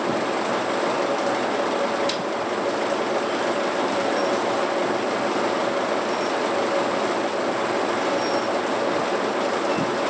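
Antique circular sawmill running steadily with no log in the cut: its power unit and big saw blade turning over, a constant hum under dense mechanical noise. A single sharp tick comes about two seconds in.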